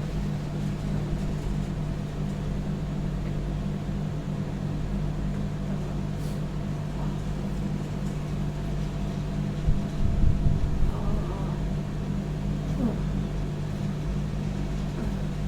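A steady low mechanical hum, with a few louder low knocks about ten seconds in.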